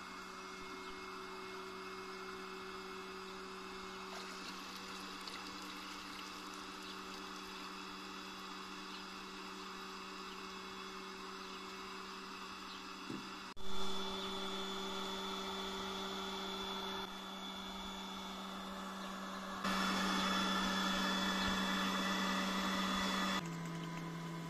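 Electric cream separator's motor running with a steady hum. A sharp knock comes about halfway through, after which the hum is louder; it grows louder and hissier for a few seconds, then drops slightly in pitch near the end.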